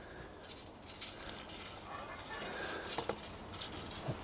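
Faint handling noise from a carbon fishing pole section being held and moved while pole elastic is pulled through it: soft rustling with a few light clicks, two of them about three and four seconds in.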